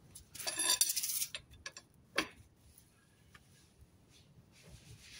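Socket ratchet wrench clicking in a quick run lasting under a second, followed by a few lighter clicks and one sharp metallic click about two seconds in.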